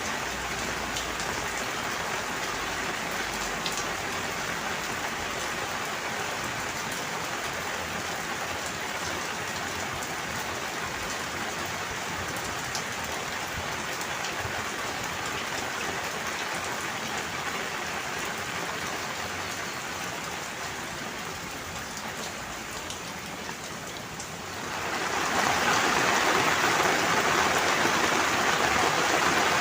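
Steady rain falling, with the patter of individual drops. Near the end it turns abruptly louder and denser.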